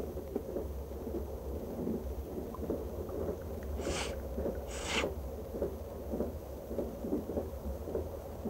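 A moving train's dining car: a steady low rumble with irregular soft knocks from the running gear, and two short hissing sniffs about a second apart midway.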